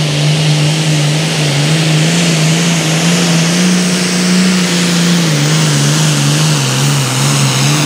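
Super Farm pulling tractor's turbocharged diesel engine running loud at full throttle under heavy load while dragging the weight sled. Its pitch holds fairly steady, rises slightly a little after midway, then drops a step about five seconds in.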